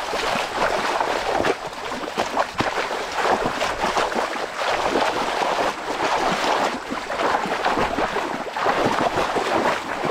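Legs and feet wading fast through a shallow, muddy stream, kicking up continuous splashing water with many sharp splashes.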